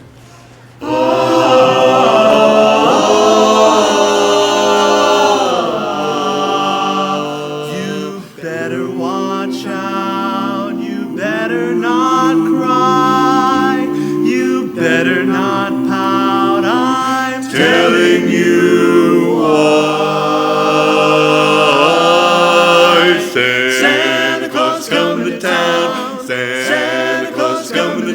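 Barbershop singers performing a cappella in close harmony, several voices together, starting about a second in.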